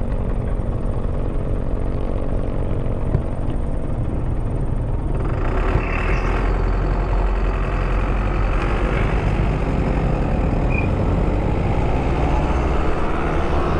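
Engines running in traffic, heard from a motorcycle stopped beside a truck: a steady low engine rumble that grows louder and fuller about five seconds in as the traffic starts moving.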